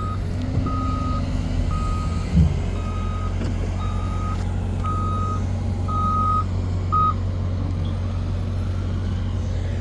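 Front-end loader's backup alarm beeping about once a second over the steady drone of its diesel engine, signalling that the loader is reversing; the beeping stops about seven seconds in. A short thump comes about two and a half seconds in.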